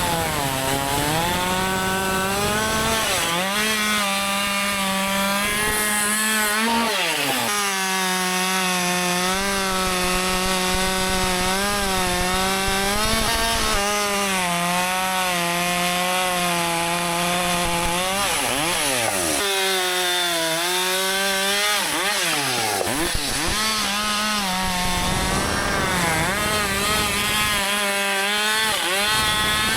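Husqvarna 564 XP two-stroke chainsaw running near full throttle in a rip cut along a log, its engine pitch dipping and recovering several times, with a few deeper drops and climbs in the second half. This is the long wide-open cut that lets the new saw's AutoTune adjust itself to fresh fuel and cold weather.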